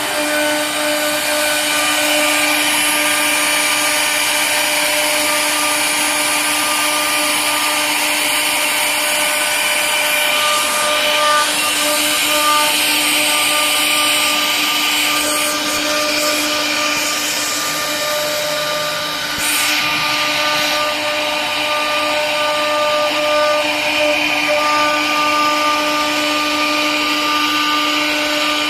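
Two 4.5 kW water-cooled spindles of a CNC router running together while carving relief into a wood board: a steady whine over the hiss of the bits cutting.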